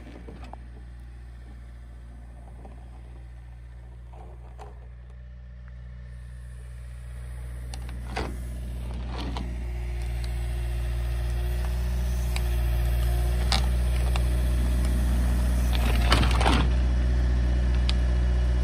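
Backhoe loader's diesel engine running steadily, growing louder as the machine comes closer carrying a culvert pipe from its bucket. A few short knocks sound over the engine, the loudest near the end.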